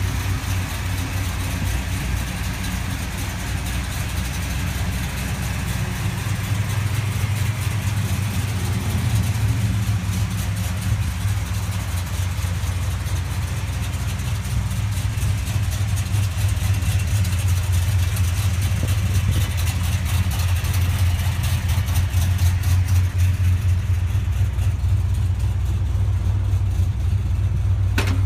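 Dodge Coronet R/T's V8 engine idling steadily with a deep, even rumble.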